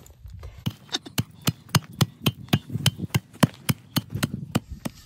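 A steel hand tamper chopping down on lumps of biochar spread on a canvas cloth over hard clay, a quick run of sharp blows about four a second from about a second in, pulverizing the charcoal into smaller bits.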